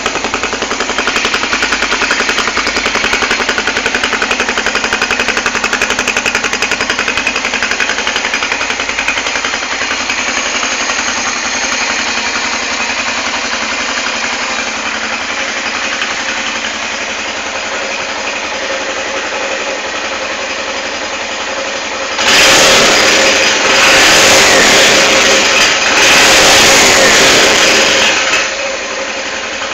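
Suzuki GN250's single-cylinder four-stroke engine idling steadily through an angle-cut (chamfered) exhaust. From about 22 seconds in it is revved up three times over some six seconds, each a louder run, then drops back to idle. The cut exhaust is a little louder than the stock one.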